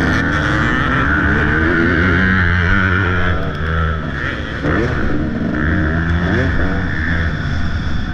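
Motocross dirt bike engine revving hard, pitch rising and dropping again and again with throttle and gear changes, over a steady rush of noise.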